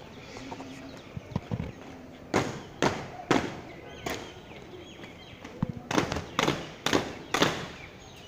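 Border guards' boots stamping hard on the parade ground in drill: about eight sharp stamps in two runs of four, the second run a little quicker.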